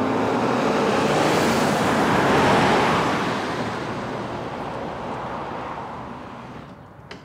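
A car driving off: engine and tyre noise comes in suddenly close by, peaks about two and a half seconds in, then fades steadily as the car pulls away.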